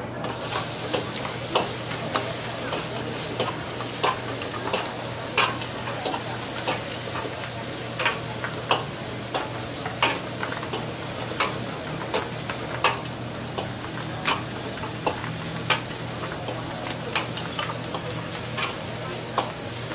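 Swamp eel being stir-fried in a wok over high heat: a steady sizzle that starts abruptly right at the beginning. The metal spatula clanks against the wok irregularly, about once or twice a second, over a steady low hum.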